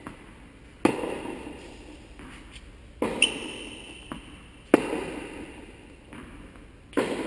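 Tennis rackets hitting a ball back and forth in a rally: four sharp strikes about two seconds apart, each ringing out in the echo of a large indoor tennis hall.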